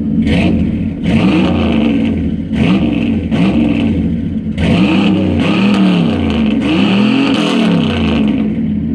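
Bored-over 350 four-bolt-main small-block V8 in a 1994 GMC, revved in repeated quick blips of about one a second, the pitch rising and falling with each blip.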